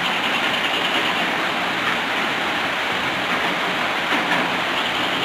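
Steady rain falling, an even hiss of water.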